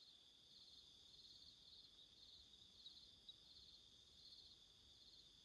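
Faint, steady chirring of crickets, a high-pitched pulsing trill over otherwise near-silent surroundings.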